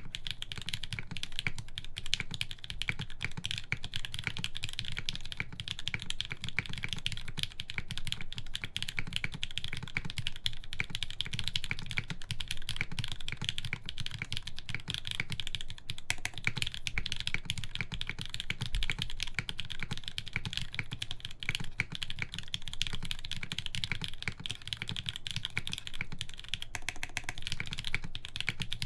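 Continuous fast typing on a mechanical keyboard with lubed Gateron Hippo switches, an aluminum plate and KeyKobo keycaps: a dense, even stream of keystrokes with no pauses.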